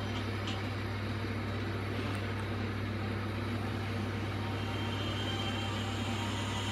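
Steady hiss with a constant low hum, no ringtone melody playing.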